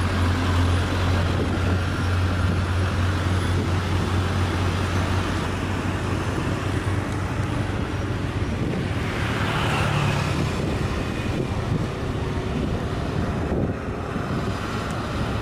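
Traffic on a steep uphill grade: heavy diesel trucks climbing with a deep steady engine drone in the first few seconds, then a car passing close by with a rising and falling rush of tyre noise about nine to ten seconds in.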